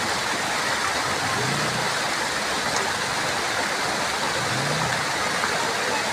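Water pouring over a low stone weir: a steady, even rush of falling water.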